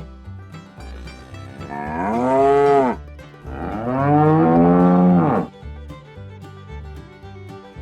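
Cow mooing twice: two long calls about a second apart, each rising and then falling in pitch, over light plucked-string background music.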